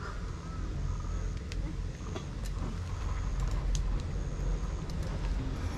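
Mountain bike riding downhill, heard through a helmet or action camera's microphone: a deep steady rumble of wind and tyres rolling over the trail, with scattered sharp clicks and rattles from the bike.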